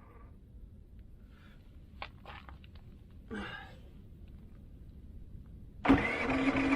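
Predator 3500 inverter generator: quiet at first, with a few faint clicks and a short grunt. Near the end its engine starts up again suddenly and runs with a steady hum, still throwing the low-oil warning although the oil is full.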